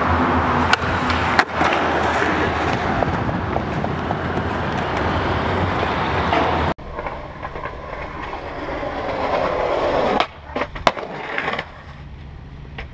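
Skateboard wheels rolling on concrete with a few sharp clacks of the board hitting the ground. About two-thirds of the way in it cuts abruptly to quieter rolling, with a quick run of clacks near the end.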